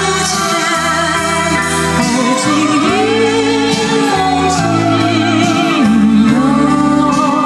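A song with a singer's wavering vibrato melody over a bass line and backing instruments, played back through Rogers LS3/5a loudspeakers.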